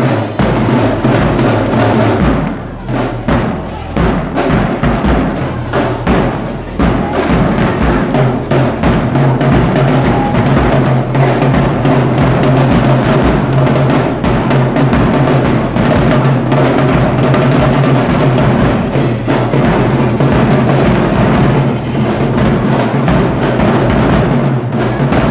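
Marching band drumline playing, with bass drums, tenor drums and snare drums beating together. Briefly quieter about three seconds in.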